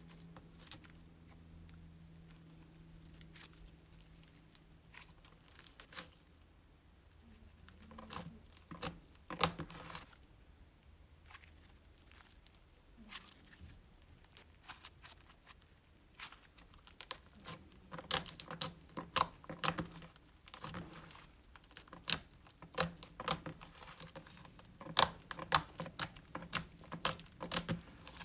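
Slime made from Elmer's glow-in-the-dark glue being squished and stretched by hand, giving sticky crackles and clicking pops. The pops are scattered at first, bunch loudly about nine seconds in, and come thick and fast through the second half.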